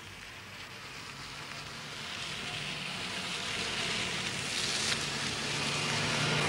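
A motor vehicle, engine and tyre noise, growing steadily louder as it approaches.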